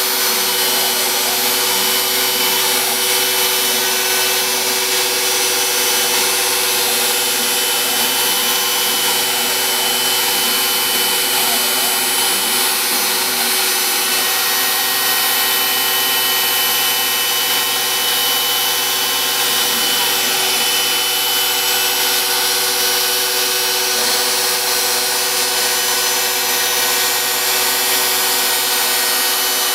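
Home-built CNC router cutting MDF under program control: the router spindle runs at a steady high whine over the cutting noise. Softer whines rise and fall in pitch underneath as the stepper-driven axes move the cutter along the toolpath.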